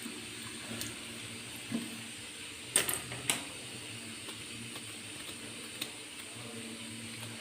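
Faint steady background hum with a few light clicks and knocks, the sharpest pair about three seconds in.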